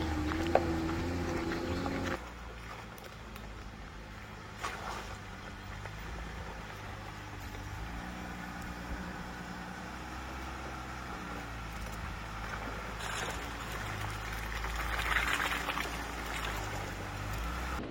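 Jeep Gladiator's engine running at low revs as it crawls along a rough dirt trail, its pitch rising and falling with the throttle, with a few short knocks. The sound drops abruptly about two seconds in.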